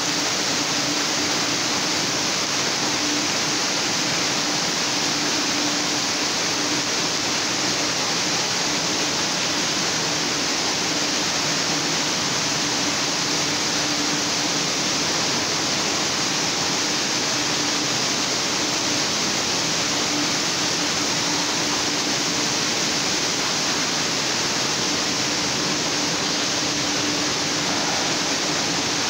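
Steady rushing and splashing of water pouring out of water-slide exits and spray features into a shallow play pool, with a faint steady hum underneath.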